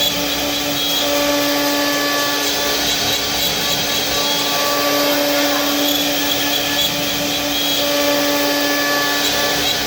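Wood router running steadily with a high hum, its cutter working through wood.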